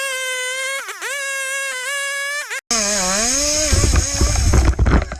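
A small engine, typical of a chainsaw, running at high revs, dropping and picking back up twice as it takes load. About halfway through it cuts abruptly to a heavier machine whose engine note sags and rises under load over a deep rumble.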